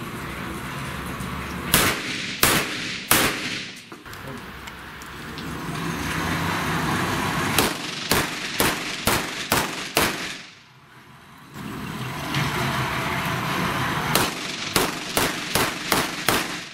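Handgun shots in quick strings, roughly two to three shots a second: three shots early, a string of about six a few seconds later, and another string of about six near the end, over a steady background noise.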